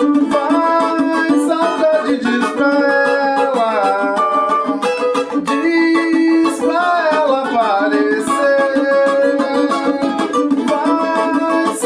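Music: a man singing a wordless melody that bends and glides, over steadily strummed and plucked acoustic strings.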